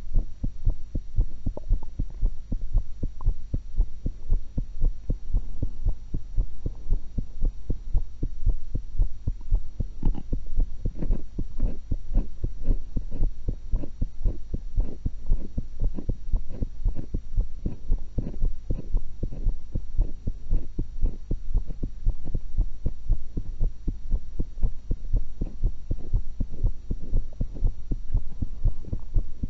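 A woman's heartbeat heard through a stethoscope: a steady, even run of low thuds. The beats sound brighter and stronger through the middle stretch.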